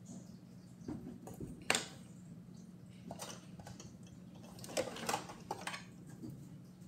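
Scattered clicks and light knocks of small objects being handled close by, the sharpest about two seconds in and a cluster near the end, over a steady low hum.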